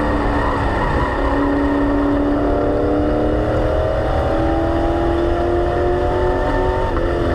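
Stock car's engine heard from inside the car at speed on an oval: its note dips about a second in, then climbs steadily as the car accelerates.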